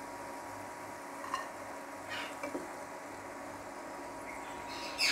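Oil sizzling steadily as a batch of potato fries deep-fries in a pan, with a few light clicks about one and two seconds in.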